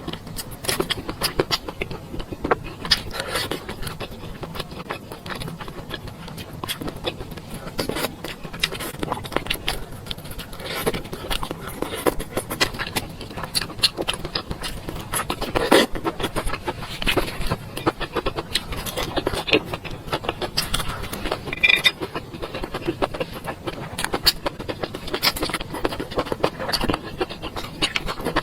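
A person eating close to the microphone: chewing and mouth sounds with many small irregular clicks and scrapes of a utensil against a bowl.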